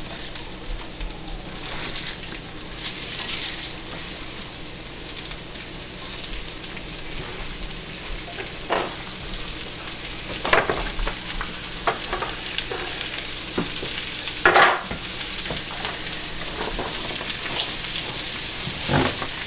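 Chopped cabbage, onion and garlic sizzling steadily in hot bacon fat in a skillet, with a few short knocks scattered through.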